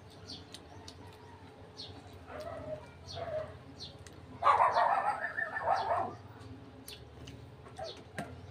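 Small birds chirping repeatedly, with one louder animal call lasting about a second and a half midway.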